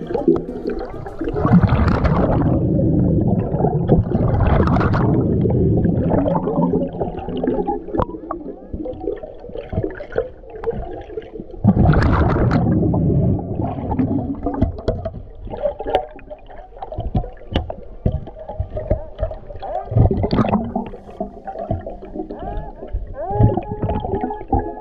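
Underwater sound of a diver breathing from a hookah regulator: bursts of rushing, gurgling exhaled bubbles every few seconds, with scattered clicks and knocks between them. Near the end a Minelab Excalibur II underwater metal detector starts a steady tone, its signal for a platinum target.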